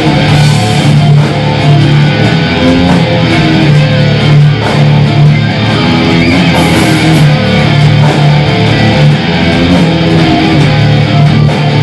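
Live heavy metal band playing loudly: electric guitars and bass riffing over drums.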